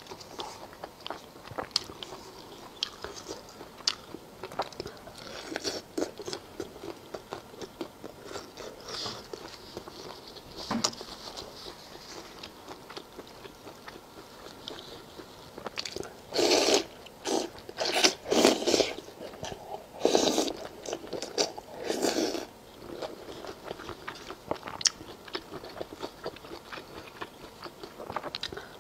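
Close-miked eating sounds of a person biting and chewing skewered food from a chili-oil broth: wet mouth clicks and chewing throughout, with a run of louder bites and chews a little past halfway.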